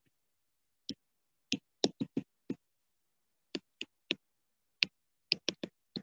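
Pen stylus tapping on a writing tablet during handwriting: about a dozen short, irregular clicks with silence between them.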